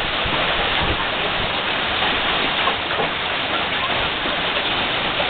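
Heavy hailstorm: marble-sized hailstones and rain pelting down in a steady, dense rush of noise.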